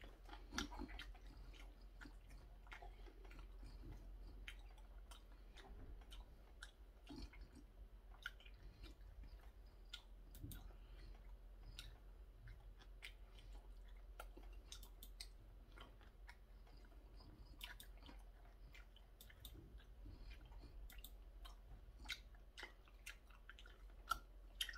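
Faint chewing of curry rice, with many small mouth clicks and smacks scattered throughout.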